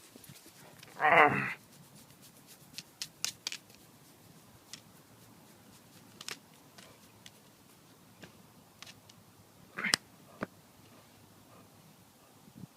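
A dog gives one short, loud growl about a second in, followed by scattered light clicks and taps.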